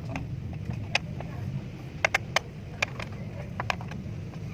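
Car engine running steadily at idle, with about eight sharp clicks scattered irregularly over it.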